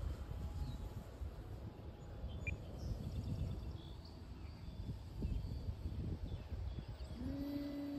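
Low rumbling wind noise on the microphone, with a few bird chirps in the middle. About seven seconds in, a model airplane's electric motor rises in pitch and then holds a steady hum.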